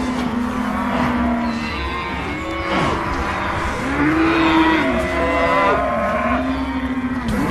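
Exaggerated cartoon stomach growling: long, pitched, moo-like rumbles that rise and fall in overlapping arcs, one after another, over a steady low rumble.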